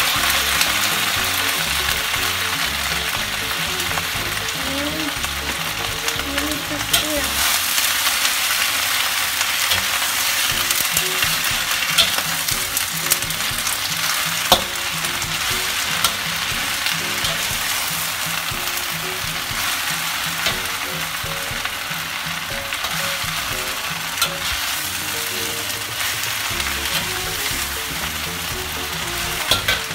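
Wet water spinach (kangkong) sizzling loudly in hot oil in a wok as it is stir-fried. The steady, dense hiss is broken by a few sharp clicks of the spatula against the wok.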